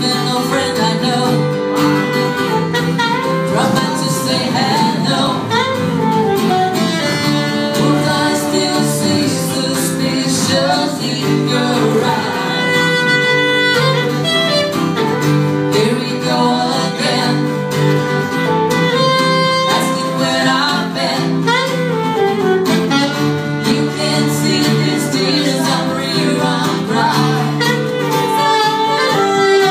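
Live acoustic band playing a song: a woman singing into a microphone over a strummed acoustic guitar and a saxophone.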